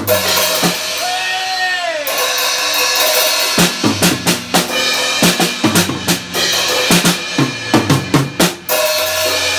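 Acoustic drum kit played live, with many kick, snare and cymbal hits, along with music that carries a pitched melody line.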